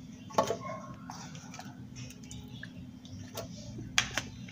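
A few light clicks and knocks from a plastic bowl and plastic blender jar being handled, the loudest two close together near the end, over a steady low hum.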